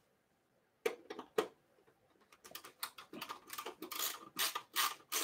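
Small screwdriver clicking and scraping against the metal case of an MSI Creator P100X mini PC as a screw is worked loose: two sharp clicks about a second in, then a busy run of quick clicks and scrapes.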